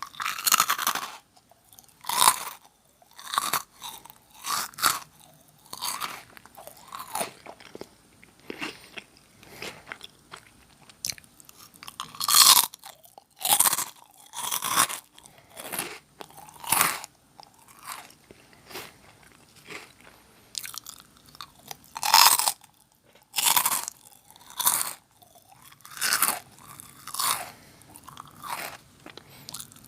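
Close-miked crunching and chewing of Nongshim Jagalchi crackers: crisp bites every second or so with quieter chewing between, a few bites much louder than the rest.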